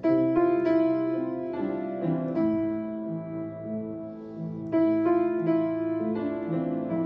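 Background piano music: a slow melody over held chords, swelling with a new chord at the start and again about five seconds in.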